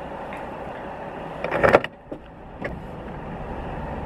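Steady road and engine noise inside a moving car's cabin, with a short loud burst about one and a half seconds in and a small click about a second later.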